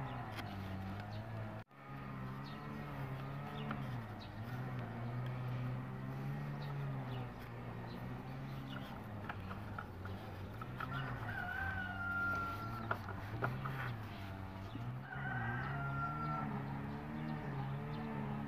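A rooster crowing twice in the background over a continuous low droning hum, with two light clicks about two-thirds of the way through.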